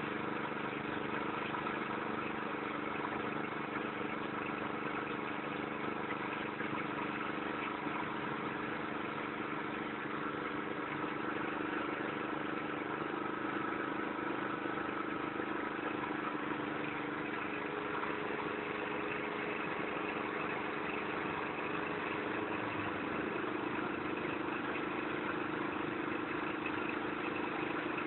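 Engine-driven rice threshing machine running steadily, a constant engine hum with a slight shift in pitch about twenty-three seconds in.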